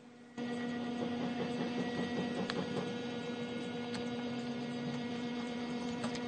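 Steady electrical hum, a low drone with overtones, that drops out for the first fraction of a second and then runs on evenly, with a few faint clicks over it.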